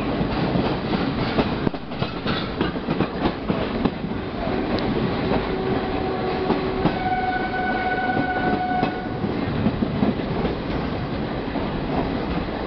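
The 12245 Howrah–Yesvantpur Duronto Express running at speed, heard from on board: a steady rumble of wheels on rail with clicks over the rail joints. Around the middle a horn sounds for about four seconds, first a lower note and then a higher one.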